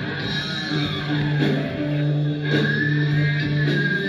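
Music with guitar, a steady held bass note under plucked and sustained notes.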